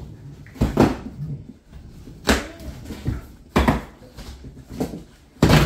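Cardboard shipping box and its packing being handled and worked open by hand: a run of about six separate sudden scrapes and knocks, the loudest near the end.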